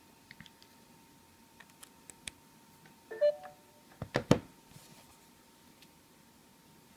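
Small handling clicks of a USB cable and smartphone, then a short electronic beep from the phone about three seconds in as charging is connected, followed by a couple of sharp plastic clicks a second later.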